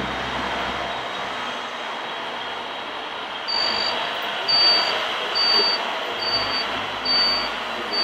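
Reversing beeper of a radio-controlled model construction vehicle, starting about three and a half seconds in with short high beeps a little more than once a second. Under it runs a steady rushing background.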